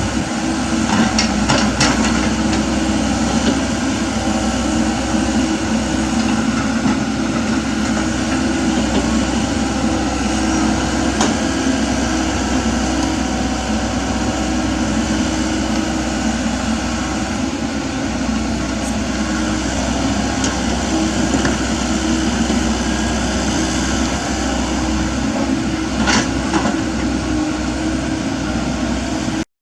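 Komatsu mini excavator's engine running steadily under work, with its hydraulics whining, while it digs. A few short clanks from the bucket come near the start, in the middle and near the end.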